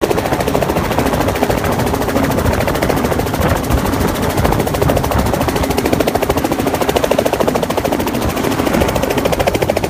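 Small two-bladed helicopter lifting off and hovering close by, its main rotor giving a loud, fast, steady chopping beat over the drone of the engine and the rush of the rotor downwash.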